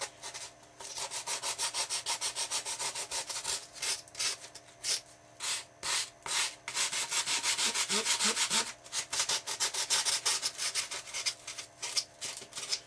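Sandpaper rubbed by hand over painted foam in quick back-and-forth strokes, about three to four a second, with a few short pauses. The surface is being roughed up so the epoxy will grip.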